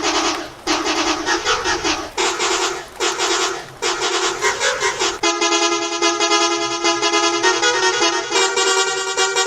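A run of vehicle horn blasts of different lengths, edited into a rhythmic sound-effect remix. About five seconds in, it cuts suddenly to steady held notes with a melody moving over them.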